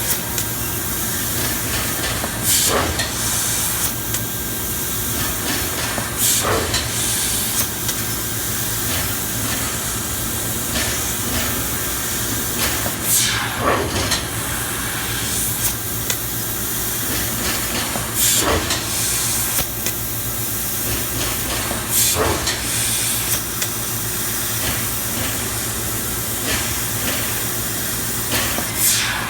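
Mazak Super Turbo X48 CO2 laser cutting machine running: a steady hiss over a low electrical hum. A sweeping whoosh that falls in pitch comes every few seconds.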